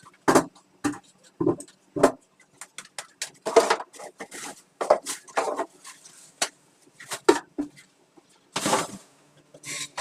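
Kitchen clatter: a string of irregular knocks and clinks as small cooking pots and utensils are handled and set down.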